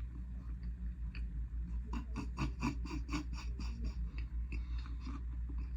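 A person chewing a crunchy Takis-topped burger close to the microphone: a run of regular crunching chews, about four a second, for a couple of seconds midway, over a steady low hum.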